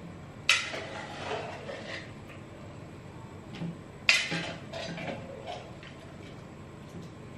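A metal spoon clinking against cookware as cooked potatoes, banana stem and chilies are scooped from a pressure cooker into a bowl. Two sharp clinks come about half a second and about four seconds in, with lighter knocks between them.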